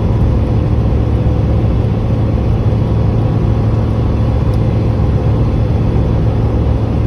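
2016 Subaru WRX's turbocharged flat-four engine running at a steady cruise, holding one even pitch with no revving, under a steady hiss of road noise.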